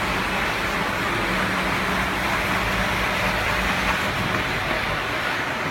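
Steady road-vehicle noise with a low hum underneath.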